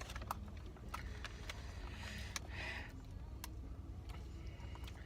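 Quiet eating sounds: scattered small clicks and a brief rustle, over a steady low hum.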